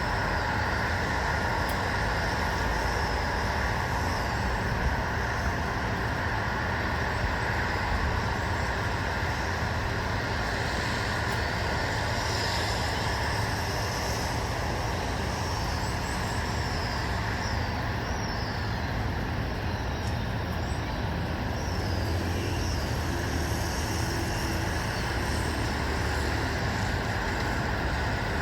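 Steady outdoor ambience of distant road traffic, an even rumbling hiss, with faint short bird chirps over it in the middle stretch.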